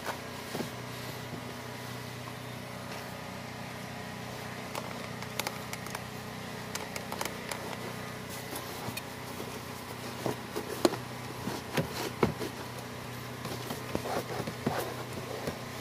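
A microfiber towel scrubbing a soapy rubber floor covering, giving irregular rubbing and clicking sounds that grow busier and louder in the second half, over a steady low hum.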